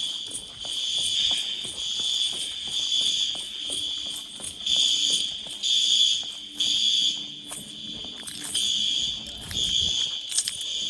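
School fire alarm sounding during a drill: a steady high-pitched alarm tone that swells and fades in loudness, with a few short clicks over it.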